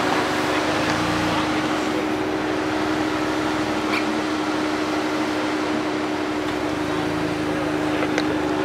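Ford Bronco running as it crawls slowly along a dirt trail: a steady engine hum under a constant hiss, with a few faint clicks.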